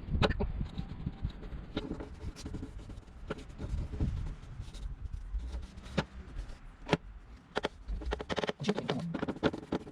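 A paintbrush scraping over the wood as varnish is brushed onto a wooden box, with a few sharp knocks of handling and a low rumble underneath.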